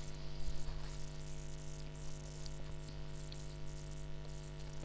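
Steady electrical hum with a constant hiss: the background noise of the narration microphone between spoken lines.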